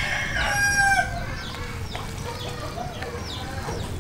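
A rooster crowing once, loud and about a second long, followed by a few short, high, falling chirps.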